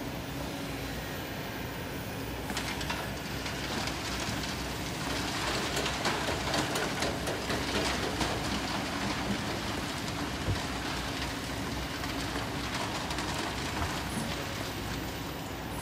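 Kobelco SK200 excavator's diesel engine running steadily under hydraulic load, with sand and stones rattling and pouring as the bucket tips its load onto a sand screen. The clatter is heaviest from about two to nine seconds in.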